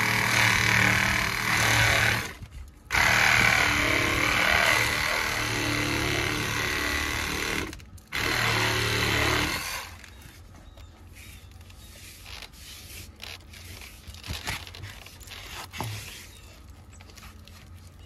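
Reciprocating saw cutting through a flexible insulated refrigerant line set, run in three stretches with short pauses between, stopping about ten seconds in. Quieter handling clicks and rustles follow.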